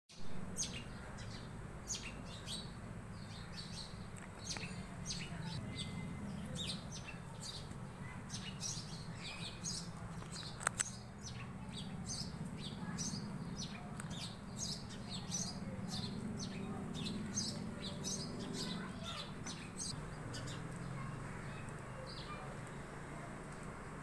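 Small birds chirping busily, many short high chirps overlapping, thinning out near the end, over a steady low background hum. A sharp click about eleven seconds in.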